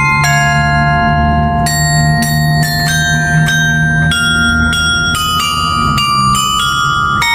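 The Bavarian Inn Glockenspiel Tower's 35-bell carillon playing a slow melody, one bell struck roughly every half second to second, each note ringing on into the next.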